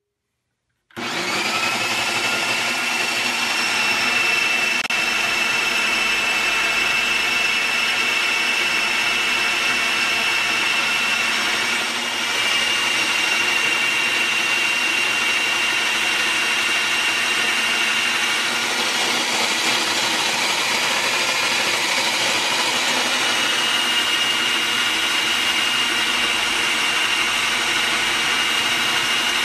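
Juiceman JM3000 electric juicer's motor spinning the citrus-press reamer while an orange half is pressed onto it. It starts about a second in with a brief rising whine, then runs steadily with a high motor whine.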